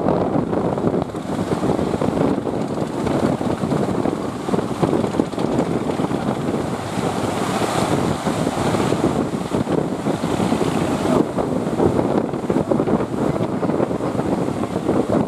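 Strong wind buffeting the microphone over the rushing noise of breaking sea waves, rough and continuous, with no engine tone standing out.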